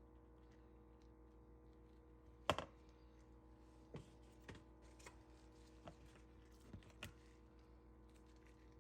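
Faint, scattered clicks and taps of a small spoon against jalapeño halves and the dish while stuffing them with cream cheese filling. The sharpest tap comes about two and a half seconds in, and about six lighter ones follow over the next five seconds. A steady low hum runs underneath.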